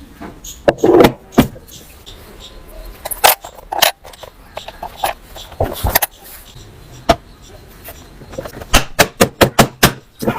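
Irregular clicks, knocks and short rustles of objects being handled, ending in a quick run of about a dozen clicks near the end.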